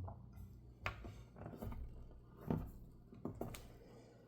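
Faint, scattered clicks and taps of small metal knife parts and a driver being handled during reassembly of a titanium folding knife, about one every second.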